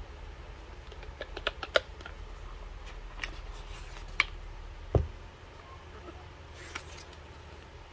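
Oracle cards being handled: a scatter of light clicks and taps, with one heavier soft thud about five seconds in.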